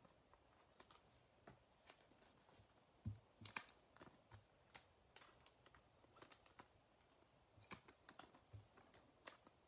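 Faint, scattered clicks and taps of stiff trading cards being handled and set down on a tabletop.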